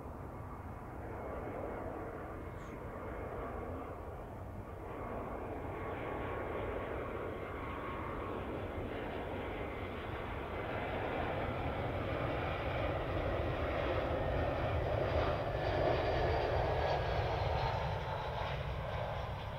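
Airbus A319-133's IAE V2500 turbofan engines on final approach to landing: a steady jet rumble with a faint whine, growing gradually louder as the airliner comes close and peaking near the end.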